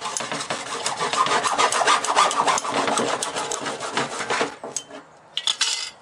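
Hacksaw cutting through the knockout nipple of a plastic sump liner with quick back-and-forth strokes, stopping about four and a half seconds in. A brief rasping handling noise follows near the end as the piece comes free.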